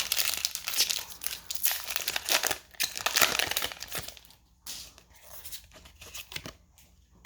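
Foil booster-pack wrapper crinkling and tearing as a Pokémon card pack is ripped open, dense for about four seconds, then fainter scattered rustles and ticks as the cards are handled.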